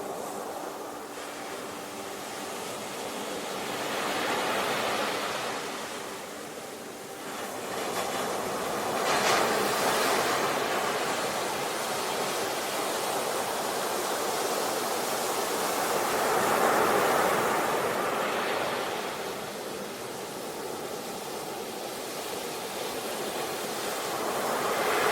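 Sea waves breaking on a shore: the surf swells up and falls back again about every five to seven seconds.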